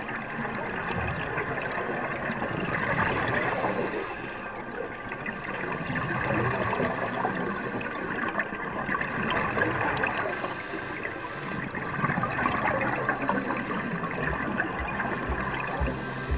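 Muffled underwater bubbling and rushing water heard through an underwater camera housing, swelling and fading every few seconds.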